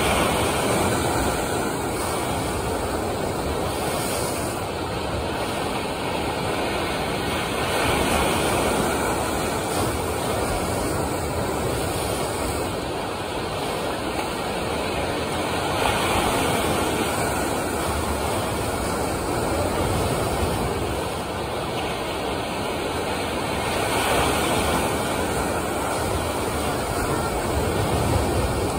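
Artificial wave pool: a steady rush of churning water as machine-made waves roll and break, the noise swelling and easing every few seconds.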